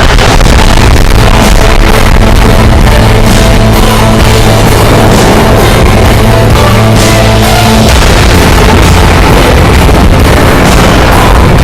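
Loud instrumental intro of a hip-hop track with rock-style instrumentation and a steady beat, no vocals.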